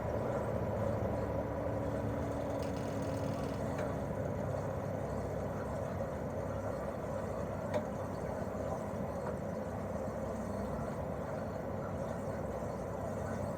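Daikin R28RMV mini-split outdoor unit running steadily in cooling mode: propeller fan whir over the hum of its twin-cylinder swing compressor, with a thin steady tone. A lower tone fades out about four seconds in, and there is one faint tick near eight seconds.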